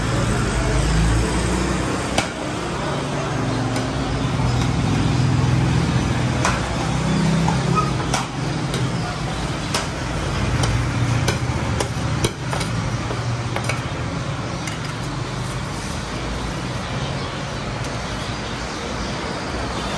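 Steel ladle knocking and scraping against a large steel serving tray, with scattered sharp clicks, over a steady hum of street traffic.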